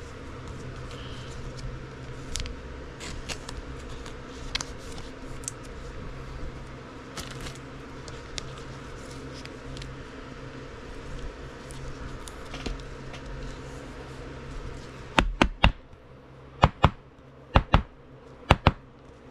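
Trading cards being handled: soft rustles and light clicks over a steady low background hum, then a run of sharp clicks or taps over the last few seconds.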